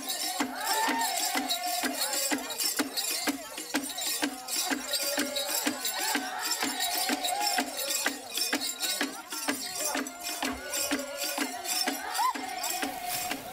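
Sandawe ritual healing-dance music: several voices singing together over a steady beat of about three strokes a second, with shaken rattles.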